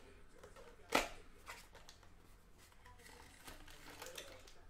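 Hands handling a cardboard trading-card box: one sharp click about a second in, then fainter clicks and rustling.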